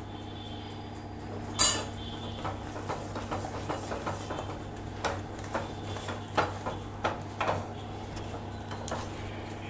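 Silicone spatula stirring and scraping thick Mysore pak batter in a nonstick pan, with repeated soft knocks and scrapes against the pan. A louder one comes about one and a half seconds in, over a steady low hum.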